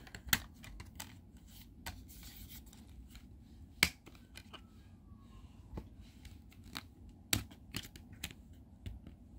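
Disc cases being handled: scattered sharp clicks and taps, about eight in all, over a faint rustle, the loudest about four seconds in and again past seven seconds.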